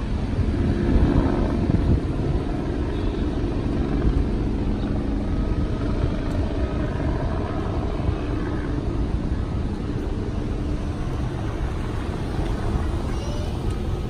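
Air ambulance helicopter flying away, its rotor and engine making a steady drone that peaks about a second in, then slowly fades.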